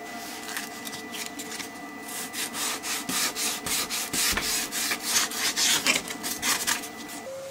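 Sandpaper rubbed back and forth by hand over a red epoxy inlay set in wood, sanding the cured epoxy flush with the wood surface. Quick scratchy strokes, about three a second, start about a second in and grow louder toward the end.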